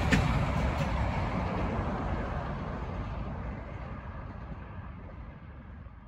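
Union Pacific freight train rumbling away into the distance, with a couple of faint wheel clicks near the start, mixed with highway traffic; the sound fades steadily away.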